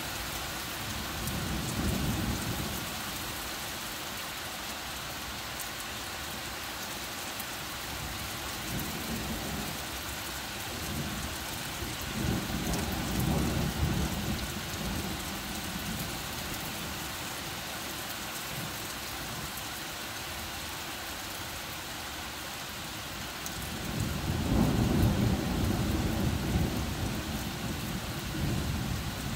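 Heavy rain falling steadily on trees, with low rolls of thunder: a short one about two seconds in, another around thirteen seconds in, and the loudest beginning about twenty-four seconds in and lasting several seconds.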